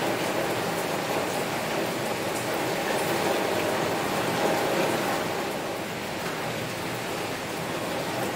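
Heavy rain falling steadily on a window, a dense even hiss with scattered sharper drop ticks, easing slightly about six seconds in.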